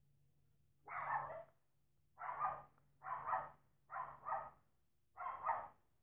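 A dog barking: six sharp barks starting about a second in, roughly a second apart, with the fourth and fifth in a quick double.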